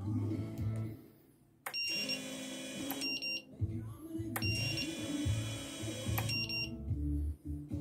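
FPV quadcopter's lost-model buzzer beeping: short, high-pitched electronic beeps repeating about every two seconds, over background music.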